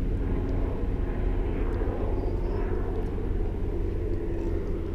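Steady low rumble with a faint hum coming in near the end.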